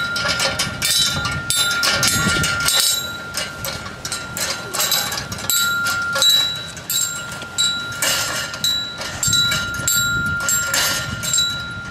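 Metal pipe bell on a wind-driven kinetic sculpture, struck over and over by the objects on its turning gear shaft: uneven strikes about twice a second, each leaving a steady high ringing tone that carries on between strikes.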